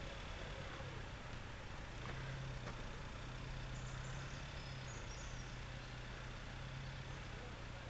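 Diesel engines of an articulated heavy-haulage truck carrying a wind-turbine blade and its escort van, running steadily at crawling speed: a low, even engine hum.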